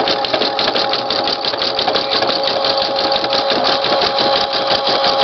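Brother PE-770 computerized embroidery machine stitching, a rapid even rhythm of needle strokes over a steady motor hum. It is sewing the butterfly's body down over loose appliqué wings.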